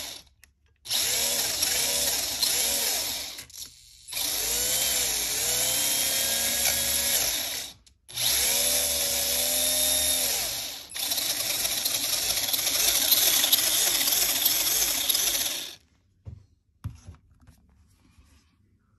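Kyosho Mini-Z Buggy's small electric motor and gear drivetrain whining as the throttle is worked with the wheels spinning free. It goes in several bursts with short pauses, its pitch rising and falling, and stops about sixteen seconds in, followed by a few light clicks.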